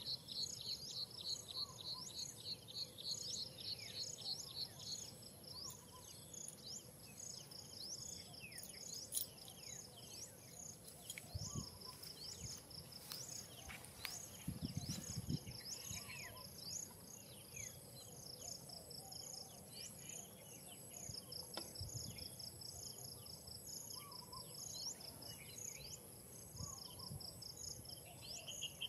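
Outdoor ambience of insects and birds: insects call in steady, rapidly pulsing trains over a constant high whine, with many short, quick chirps from birds scattered throughout. A few soft low thumps come in around the middle.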